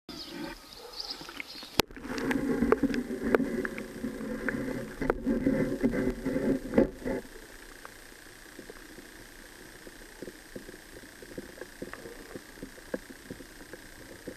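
Raindrops pattering on a river's surface as a light hiss. After a sharp click about two seconds in, loud churning water with many clicks follows for about five seconds as the microphone goes under. From about seven seconds on there is a quiet, muffled underwater hiss with faint scattered ticks.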